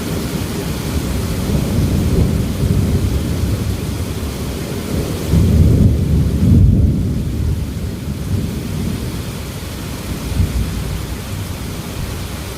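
Thunder rumbling over steady heavy rain. The rumble swells a couple of seconds in and is loudest around the middle, then fades.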